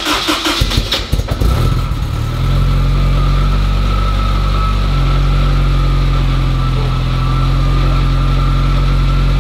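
Supercharged Honda S2000 four-cylinder engine through its Mugen exhaust, starting up unevenly and settling into a steady idle about two and a half seconds in, with a thin steady whine over the low exhaust note.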